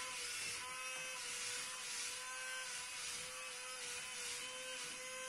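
Cruzer Speed Fury RC wall-climbing car's suction fan and drive motors running with a steady buzzing whine and an airy hiss as it drives upside down across a ceiling, the fan's suction holding it in place.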